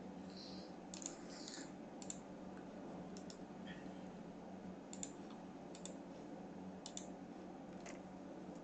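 Computer mouse clicking, about eight scattered sharp clicks, some in quick pairs like double-clicks, over a faint steady low hum.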